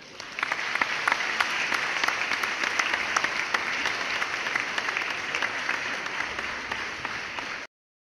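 Audience applause, many hands clapping together. It swells in quickly, holds steady, eases slightly, then cuts off abruptly near the end.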